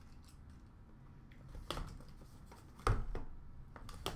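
Cardboard trading-card box being handled and opened by hand: a few sharp taps and knocks, the loudest a little under three seconds in.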